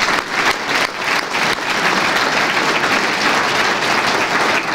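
Audience applauding loudly, with many hands clapping together at once.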